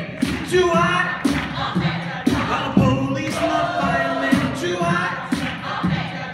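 A cappella group singing a pop mashup: several voices in harmony with no instruments, over a steady beat.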